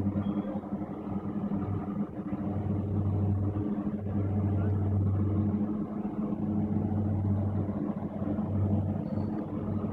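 A floatplane's propeller engine running steadily, heard as a low drone that swells and fades every second or two.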